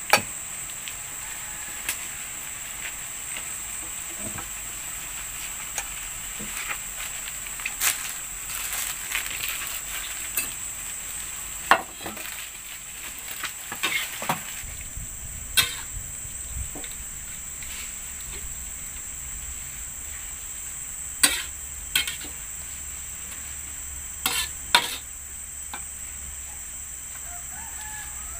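Food sizzling in a frying pan, with sharp knocks and scrapes of a cooking utensil now and then, over a steady high-pitched insect buzz.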